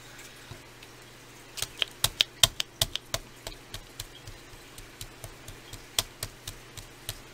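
Sharp, irregular clicks and taps from handling the containers of two-part mold putty while it is portioned out. They come thick and fast a couple of seconds in, then thin out.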